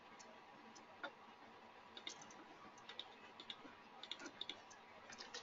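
Faint computer mouse clicks, a dozen or so scattered irregularly over near-silent room tone.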